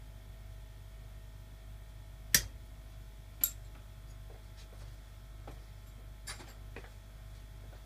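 Steady low hum with sharp clicks over it: two loud clicks about a second apart, then a few fainter ticks later on.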